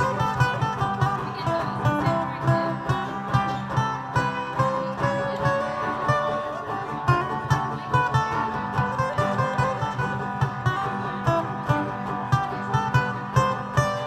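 Instrumental break of a live country song: strummed acoustic guitars keep a steady beat while a melody line is played over them.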